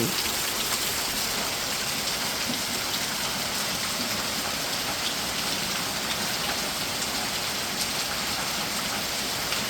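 Rain falling steadily on surfaces, with water running off, a few drops ticking now and then.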